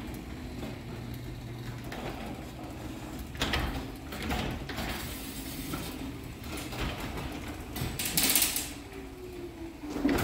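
Linear LDCO850 chain-drive garage door opener lowering a sectional garage door: a steady low motor hum with scattered clicks and rattles from the moving door. It ends in a loud knock as the door reaches the floor, and the sound cuts off as the opener stops.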